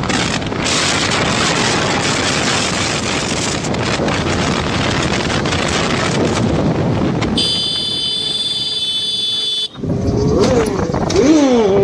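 Motorcycle riding at speed, with wind rushing over the microphone over the engine and road noise. A bit past halfway a high, steady multi-note tone sounds for about two seconds while the rush drops away, then the engine revs up and down a few times near the end.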